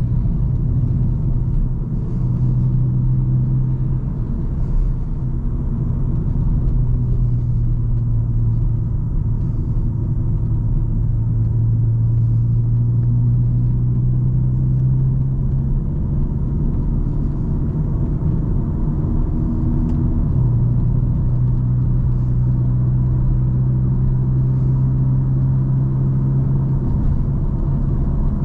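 A car's engine hums steadily under way, with low road rumble from the tyres; the engine's note shifts slightly in pitch a few times.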